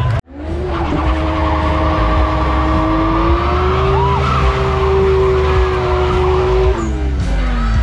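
A car doing a burnout: its engine is held at high revs, the pitch edging up and then holding steady over the hiss of spinning, squealing tyres, before the revs fall away near the end. The sound starts after a momentary cut.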